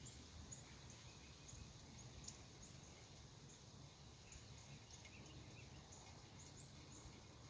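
Faint outdoor ambience: short, high bird chirps every second or so over a low, steady rumble.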